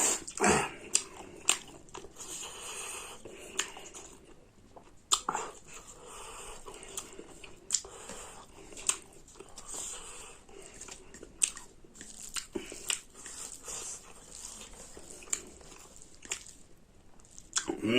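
Close-miked mukbang eating sounds: a person chewing and biting a mouthful of pork curry and rice, with irregular wet mouth clicks and smacks.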